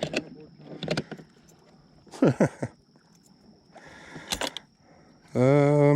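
Scattered plastic clicks and knocks with a brief squeak about two seconds in, from handling the storage compartment and gear on a sit-on-top fishing kayak.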